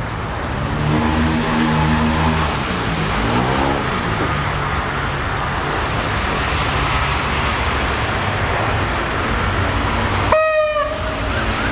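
GEA-class GE diesel-electric locomotive No. 4537 pulling a passenger train slowly into a halt, its diesel engine running under load and the wheels rumbling over the rails. About ten seconds in, a single short horn toot sounds.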